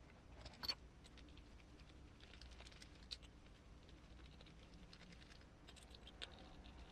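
Faint scattered clicks and light rattling of small screws and parts being handled while beadlock wheel rings are screwed together on an RC crawler wheel, with one sharper click just under a second in.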